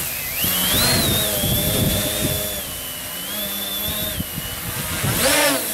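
Tricopter's three Turnigy NTM 28-26 1350KV brushless motors and propellers buzzing in flight, a high whine that drifts up and down in pitch with the throttle. About five seconds in the motors rev up sharply and drop back.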